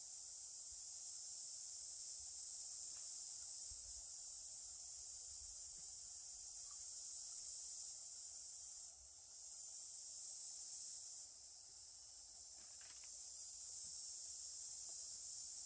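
Insects buzzing in a steady, high-pitched chorus that dips briefly twice, with a faint low rumble beneath.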